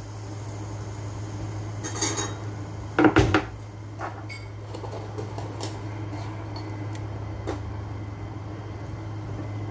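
A spoon stirring soup in a large white cooking pot, knocking against the pot a few times, loudest about three seconds in, with scraping and clinks between. A steady low hum runs underneath.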